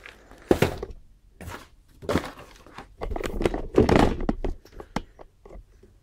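Handling noise: a series of irregular knocks and clicks with stretches of rustling, as things are moved about and set down.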